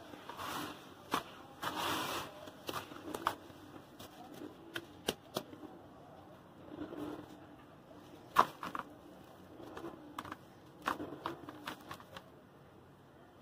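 Hands kneading, squeezing and crumbling a wet, gritty cement and sand mix in a plastic tub: irregular sharp clicks and crackles of grit, with short scratchy swishes as handfuls are worked and dropped.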